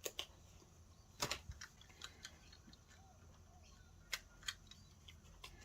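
Light, scattered clicks and taps of cardboard box-insert pieces being handled and knocked together, about nine in all, with the loudest a little after a second in.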